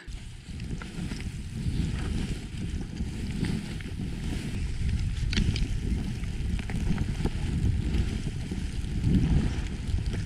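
Skis running downhill through snow, with wind buffeting the microphone: a steady, wavering low rumble and hiss.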